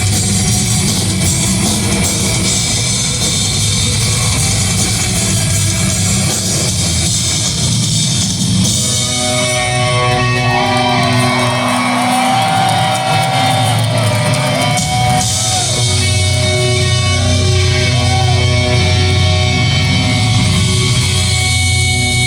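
Heavy metal band playing live, heard loud in a large hall. About nine seconds in the low drums drop away for a few seconds while a guitar melody with bent notes stands out, then the full band comes back in.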